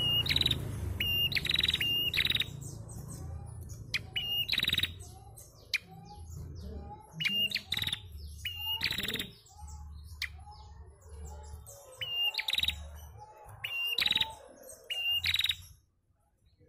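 Caged female prenjak calling: short high notes, each a brief clear tone running into a fast rattling trill, repeated in bursts every second or few seconds. A steady low rumble sits underneath.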